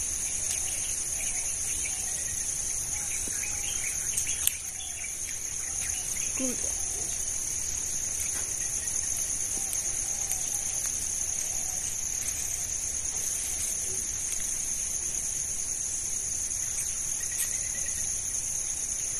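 Steady, high-pitched chorus of insects, heard as two continuous high tones, with a single sharp click about four and a half seconds in.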